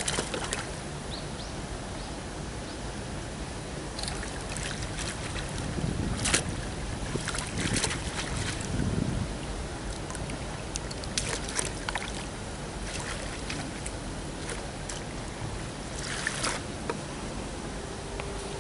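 Water splashing in several sharp splashes as a hooked trout thrashes at the surface and is scooped into a landing net, over a steady rush of wind on the microphone.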